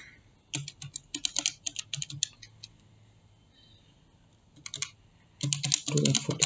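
Keys being typed in quick runs of clicks: a run of taps in the first couple of seconds, a pause, then a denser run near the end.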